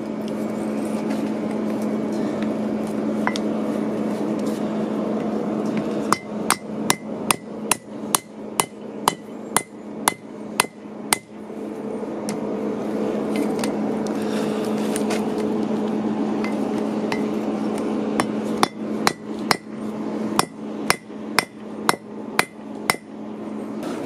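Hand hammer striking a red-hot steel bolt held in tongs on an anvil, upsetting it to thicken it: two runs of sharp blows at about two a second, one starting about six seconds in and one near the end, with a few single strikes before. A steady hum with a low tone runs underneath.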